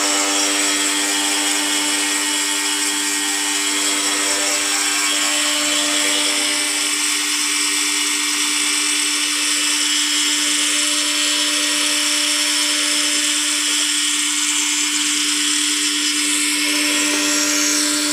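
Electric pressure washer running steadily, a constant motor hum under a wide hiss of spraying water.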